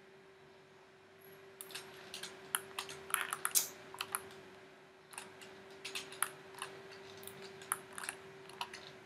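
Computer keyboard keys and mouse buttons clicking in irregular runs, starting about a second and a half in and densest a couple of seconds later. A faint steady hum sits underneath.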